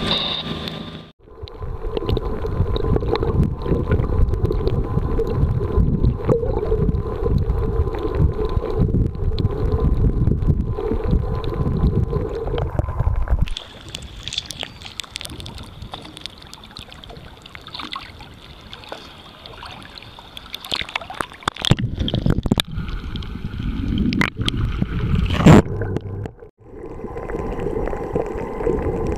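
A boat's motor running briefly before cutting off about a second in. Then sea water sloshing and gurgling around a camera held at the surface, with a single loud thump near the end, followed by the muffled low rumble of water heard underwater.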